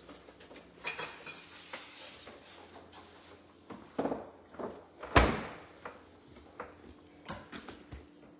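Kitchen things being handled on a countertop: a string of knocks and clatters, the loudest about five seconds in with a brief ring after it.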